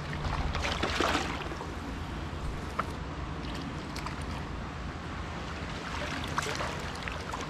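Stream water running steadily, with a hooked trout splashing at the surface about a second in.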